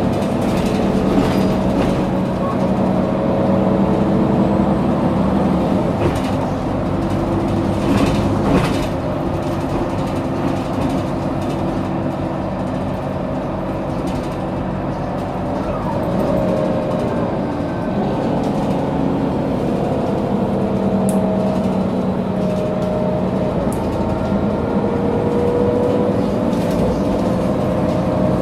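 Mercedes-Benz O530G Citaro articulated city bus heard from inside while riding: engine and drivetrain running steadily. A whine falls in pitch in the first few seconds and rises again over the last few seconds.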